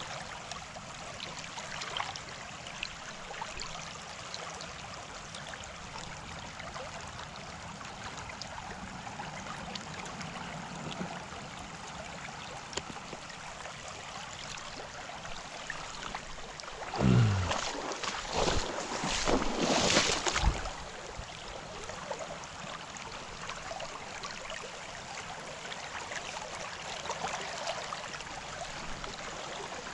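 Shallow stream water running over a rocky bed, a steady rushing hiss. About seventeen seconds in, a louder burst of noise lasting some three seconds breaks over it.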